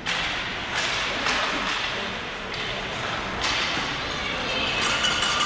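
Ice hockey rink game sounds: about five sharp clacks, typical of sticks and puck, over the rink's steady noisy background. A pitched sound with several tones starts near the end.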